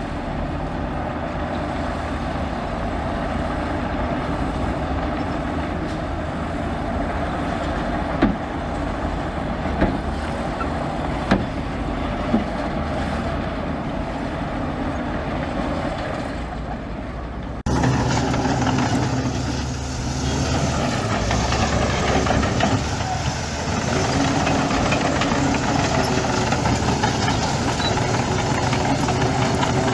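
Heavy diesel engine running steadily, with a few sharp knocks partway through. The sound changes abruptly about two-thirds of the way in, becoming louder and deeper.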